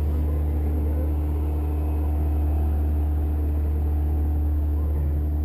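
Steady low rumble of a running vehicle, with a steady hum above it and no change in level.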